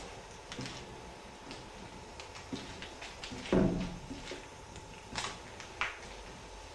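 Irregular clicks and knocks, with one louder thump about three and a half seconds in.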